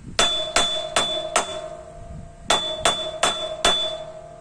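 Craftsman screwdriver used as a hammer, striking metal in eight hard taps, two sets of four about 0.4 s apart, each one ringing. It is a test of whether the screwdriver will split under hammering.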